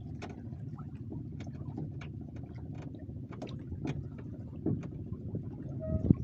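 Small wooden fishing boat afloat at sea: a steady low rumble with scattered clicks and knocks of water and wood against the hull, and a sharper knock near the end.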